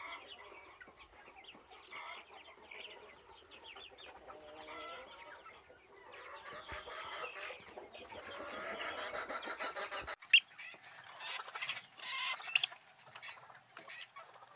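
Farmyard poultry clucking and calling in many short calls, busier and louder from about seven seconds in, with a single sharp click about ten seconds in.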